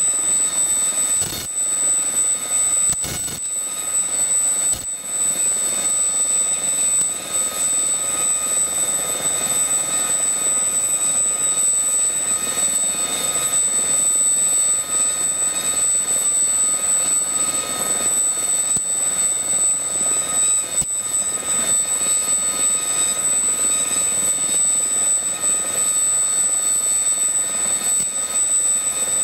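Gazelle helicopter's Turbomeca Astazou turboshaft running on the ground with the rotors turning: a steady, high-pitched turbine whine made up of several constant tones over a rushing noise.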